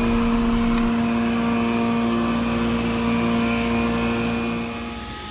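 MultiCam CNC router running idle with its spindle still spinning: a steady hum with a strong single tone. The tone cuts off abruptly about five seconds in, leaving a quieter machine hum.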